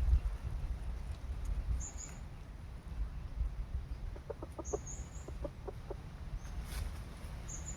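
A chicken clucking: a quick run of about six short clucks a little past halfway through. A few brief high chirps from a small bird come now and then over a steady low rumble.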